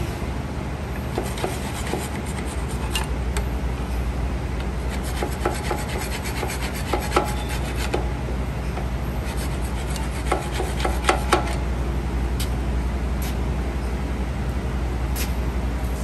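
A flathead screwdriver scraping metal on metal, rubbing rust and grime off the pad seating surfaces of a Bendix air disc brake caliper so the new pads will slide in easily. Every so often the tool clinks against the caliper with a short metallic ring, loudest about halfway through and again about two-thirds of the way through.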